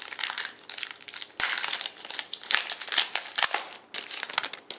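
Plastic and foil wrapping on a trading-card box and packs crinkling and tearing as it is opened by hand, in quick irregular bursts that stop near the end.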